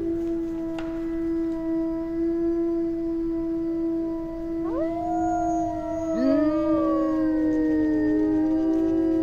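Several wolves howling together. One long, steady howl is held throughout. A second howl rises in about halfway through and slowly falls, and a third swoops up from low about two-thirds of the way in.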